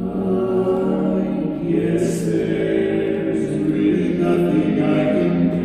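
Barbershop quartet of four men singing a cappella in close harmony, holding long sustained chords.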